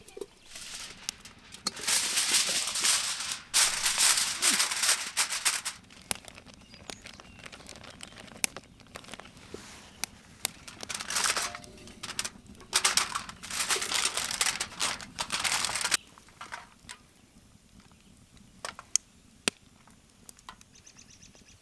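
Crinkling of food wrapping being handled, in four loud bursts of a second or two each, then a few light clicks and taps.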